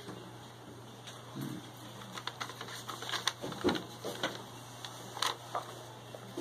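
Paper crackling and rustling as a folded sheet is handled and refolded, a quick run of short crackles through the middle, over a steady low hum.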